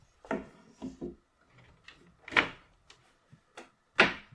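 Plywood seat slats knocking against the chair frame as they are set down onto the leg tenons. There are a few light wooden knocks, the two loudest about midway and near the end.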